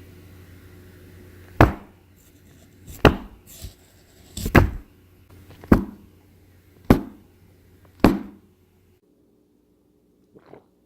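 Six sharp, loud hits about a second apart over a steady low hum; the hum cuts off suddenly shortly after the last hit, followed by one faint short sound near the end.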